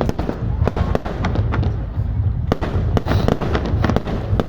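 Fireworks display: aerial shells bursting in quick, irregular succession, a dense string of sharp bangs over a continuous low rumble.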